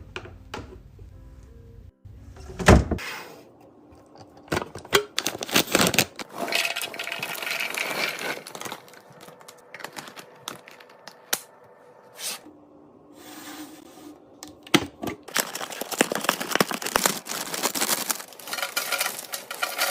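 Close-up handling sounds of restocking food: packaging rustling, with sharp clicks and knocks from containers and lids being set down and closed.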